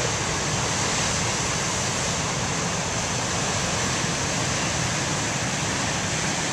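Heavy ocean surf breaking, a steady rushing noise of waves mixed with wind buffeting the microphone.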